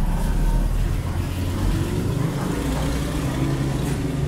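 Street traffic, with a nearby motor vehicle's engine running as a steady low rumble.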